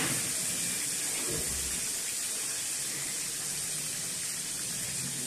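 Green chillies and nigella seeds sizzling steadily in hot oil: a tempering being fried before the spices go in.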